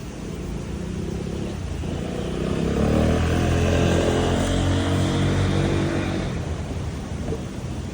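A motor vehicle driving past in the street, its engine sound swelling and then fading, loudest about three to four seconds in, over steady street background noise.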